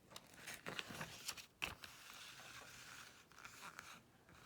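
Faint paper rustling and handling: the pages of a picture book being turned, with a series of short rustles and a sharper click about one and a half seconds in.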